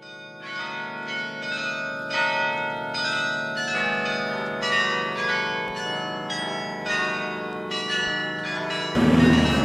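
Church bells ringing a run of strikes, about two a second, each ringing on into the next, fading in at the start. Near the end the bells give way abruptly to a louder, noisy sound.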